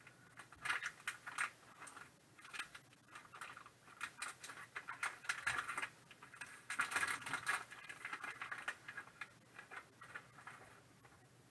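Irregular rustling and crinkling of a white card mailer envelope being opened, with light clicks as a plastic graded-card slab is slid out and handled. The rustling is busiest about seven seconds in.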